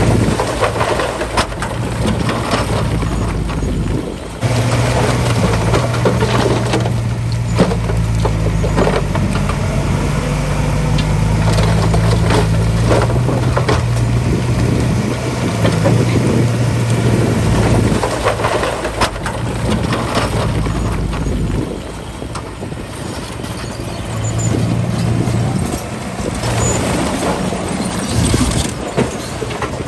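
Small bulldozer's diesel engine running under working load, its note stepping up and down, with scattered metallic clanks and rattles.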